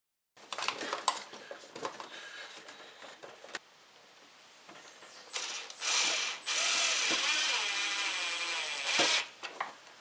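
Plastic freezer panel parts clicking and knocking as they are fitted, then a cordless drill-driver whirring in two short bursts and then running for about three seconds, its pitch sagging and recovering as it drives a screw, before it stops suddenly.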